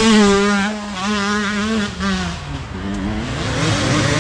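Dirt bike engine buzzing at high revs, its pitch wavering as the throttle works, then dropping away about two seconds in; engine sound builds again near the end.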